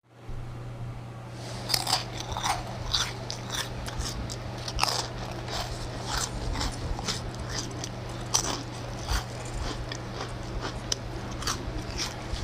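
Crispy fried chicken being bitten and chewed close to the microphone: repeated sharp crunches of the breading, a few each second, over a steady low hum.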